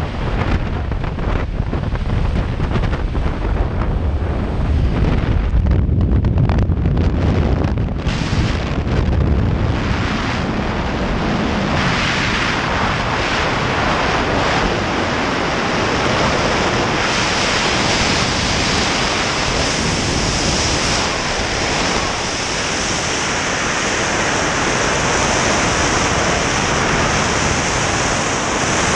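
Wind noise on a helmet-mounted camera's microphone during a skydive: first a low drone of the jump plane's engines and slipstream at the open door, then, from about ten seconds in, the steady rush of freefall wind.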